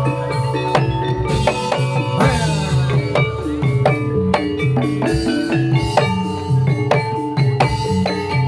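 Javanese gamelan music for a Jathilan dance, played loud through a sound system: struck bronze keyed instruments and gongs ringing in interlocking notes over a steady drum pattern.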